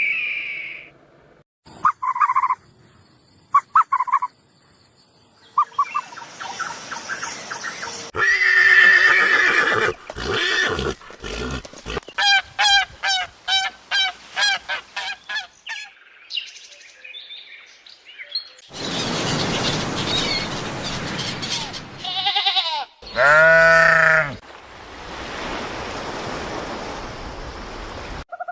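A sequence of different animal calls: a few short calls, then a rapid run of repeated calls, a stretch of hissing noise, and one loud drawn-out call near the end.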